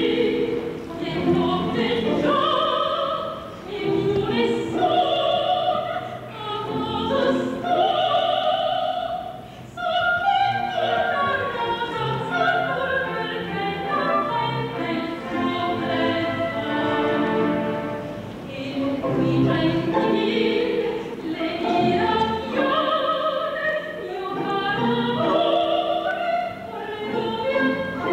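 A woman singing an operetta song in full operatic voice with orchestral accompaniment, holding long notes.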